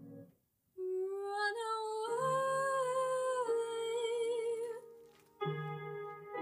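A girl singing a slow, sustained vocal line with vibrato on the held notes, accompanied by piano chords. The sound cuts out briefly just after the start, and there is a short pause about five seconds in before a piano chord.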